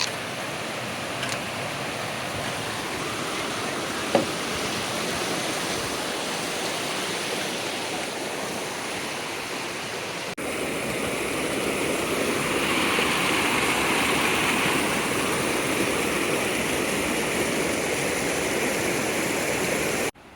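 Steady rushing of flowing stream water, with an edit about halfway where it becomes somewhat louder, and one short knock about four seconds in.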